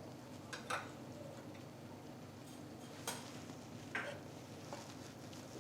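A few faint, scattered clinks of a serving spoon against a plate and pot as rice is dished out, with quiet between the taps.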